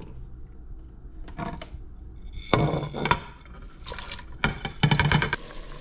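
Knocks and clatter of a plate against a stainless steel stockpot as chopped onion, sliced mushrooms and bouillon cubes are tipped off it into the water: a few light knocks, then louder clatter from about halfway, and a run of quick clicks near the end.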